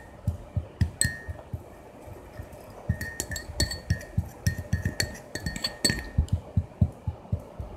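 Powder being stirred in a small bowl: rapid taps and clinks of the stirring tool against the bowl, each ringing briefly. It slows to a lull about two seconds in, then the tapping picks up fast and dense to the end.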